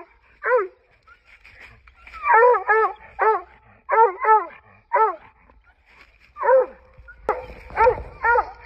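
Bluetick coonhound barking up a tree, about ten short chopping barks, some in quick pairs with short pauses between: a tree bark, the sign that the hound has its quarry treed.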